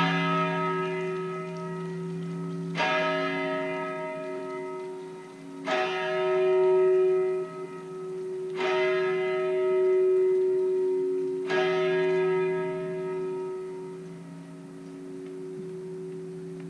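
A bell tolling slowly: five strikes about three seconds apart, each ringing on and fading, over steady lower ringing tones.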